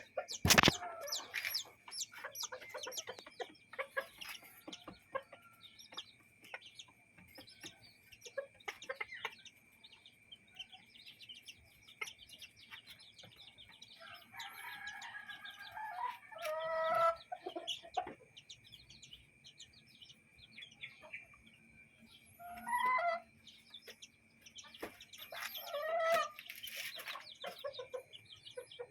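Backyard chickens clucking and chicks peeping in many short calls, with a few longer drawn-out calls around the middle and near the end. A sharp knock just after the start is the loudest sound, and a steady high-pitched tone runs underneath.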